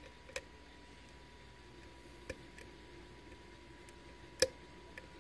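Faint metallic clicks of a Sargent pin-tumbler cylinder being picked with a hook pick under tension, three or four short clicks with the loudest near the end, which the picker takes for a click from pin three. A faint steady hum runs underneath.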